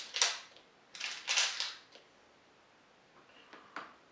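Small screws and metal parts rattling and clinking as they are handled in a parts tray, in two bursts of clatter over the first two seconds, then a few light clicks near the end.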